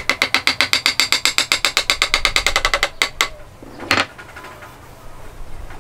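Rapid light taps of a wooden mallet on the end of a thin wooden key, driving it through the slot of a wooden joint: about nine ringing wood-on-wood knocks a second for about three seconds, then two more taps and a single harder knock about four seconds in.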